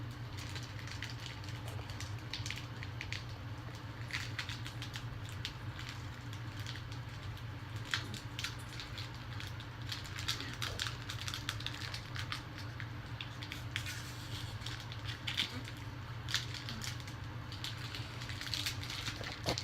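Plastic-foil trading-card pack wrappers crinkling and crackling as they are handled and torn open, over a steady low hum.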